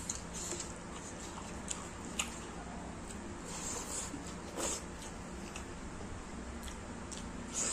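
Close-miked eating sounds: fingers squishing rice mixed with curry and dal, and mouth chewing with scattered short wet smacks and clicks.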